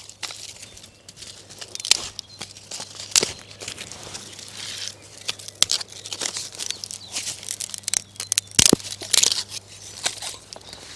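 Dry twigs and brush crackling and snapping as thin sticks are pulled from a pile of dry brush and broken for kindling, in irregular sharp cracks with the loudest snap about eight and a half seconds in.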